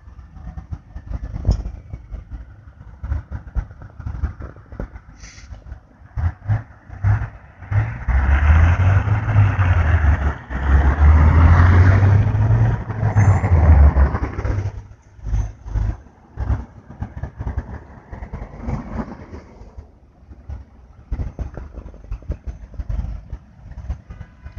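Freeway traffic rumbling steadily, with one vehicle rushing past loudly for several seconds in the middle.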